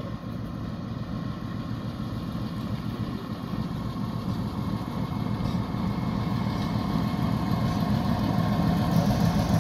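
Two ALCO diesel-electric locomotives hauling a passenger train, their engines running and growing steadily louder as the train approaches.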